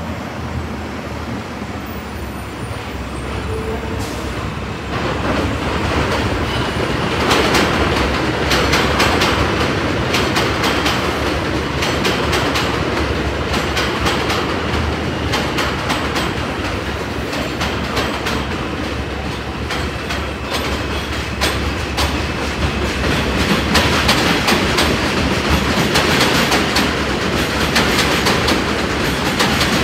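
Subway train running along the elevated steel structure overhead, its wheels clattering rhythmically over the rail joints. It comes in louder about five seconds in and keeps going.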